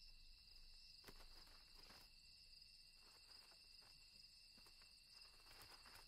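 Near silence: a faint, steady high-pitched chirring of insects, with a few soft ticks.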